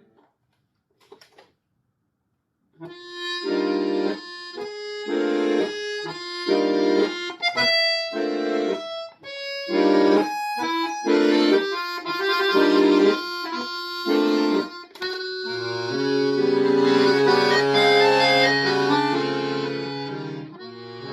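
Solo accordion, silent for the first few seconds, then playing short detached chords and brief phrases separated by rests. In the last few seconds it moves into sustained full chords over a low held bass.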